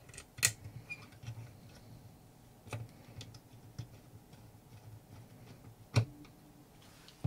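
Faint, scattered clicks and ticks of a screwdriver driving the small screws that hold TO-220F MOSFETs and transistors to an ECU board's heat-sinking bracket, with sharper clicks about half a second in and about six seconds in.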